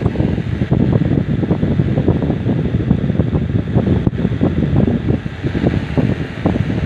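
Steady fan noise with a low, fluttering rumble of air buffeting the microphone.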